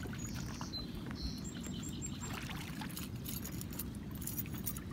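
Riverbank ambience: a steady low rush of wind and water, with faint high bird chirps in the first half and a few light clicks near the end.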